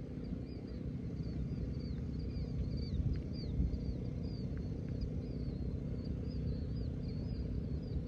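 Wind buffeting the microphone in a gusty low rumble, with small birds chirping over it in short, repeated high notes several times a second.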